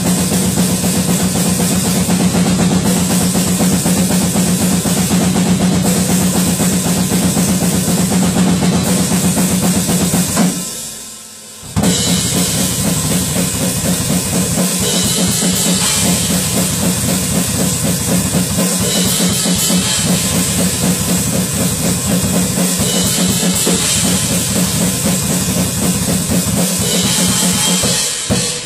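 Acoustic drum kit played fast and without let-up: bass drum, snare and cymbals. It breaks off for about a second near the middle, then picks up again.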